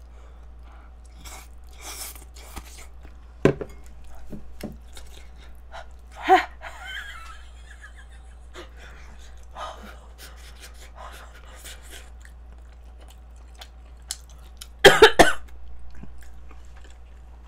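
A woman coughing into her hands while eating. There is a single cough about three seconds in and another a few seconds later. Near the end comes a quick run of three hard coughs, the loudest.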